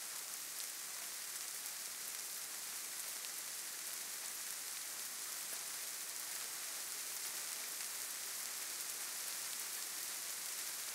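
Steady soft hiss like light rain, with faint scattered ticks.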